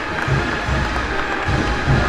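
Processional band music: held brass notes over a steady bass drum beat of about two strokes a second.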